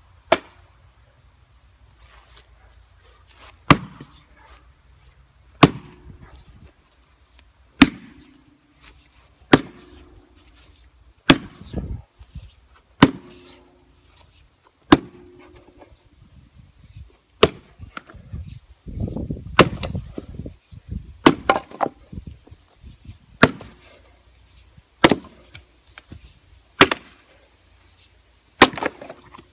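Fiskars X27 splitting axe chopping into a round of freshly cut red oak: about fifteen sharp blows, roughly one every two seconds, some followed by a brief ringing tone as the wood splits. About two-thirds of the way through there is a busier stretch of knocks and clatter.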